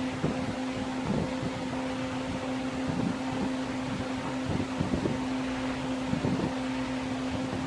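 Electric heat gun running with a steady fan hum, while short scrapes and taps come every second or so from work on the vinyl seat cover.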